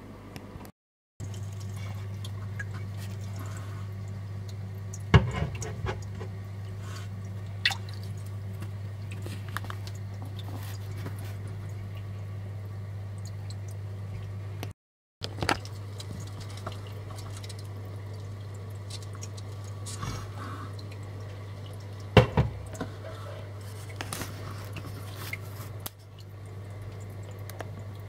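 Water drops falling into aquarium water: a handful of separate sharp drips and small splashes, the loudest about five seconds in and again past twenty seconds, over a steady low hum.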